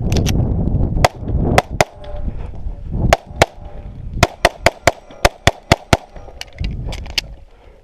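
A string of pistol shots fired rapidly during a timed USPSA course of fire: about a dozen sharp cracks, mostly in quick pairs and groups of three a quarter second or so apart, with short pauses between groups.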